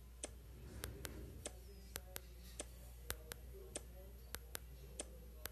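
Fingertips double-tapping a smartphone touchscreen: faint sharp ticks, mostly in quick pairs, repeated about once a second, over a low steady hum. The text-to-speech reader stays silent because the PDF is a scanned image it cannot read.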